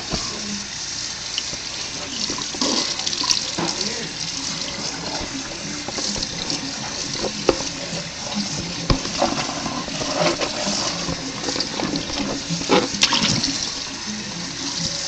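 Kitchen faucet running steadily, its stream splashing over a woven palm leaf hat and into the sink, with now and then a sharper splash or knock.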